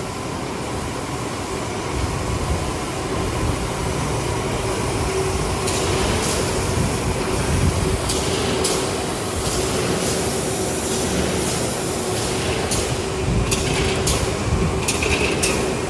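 Automatic corrugated box folding, gluing and stitching machine running: a steady mechanical din with a faint constant hum, and from about six seconds in a series of irregular sharp clacks.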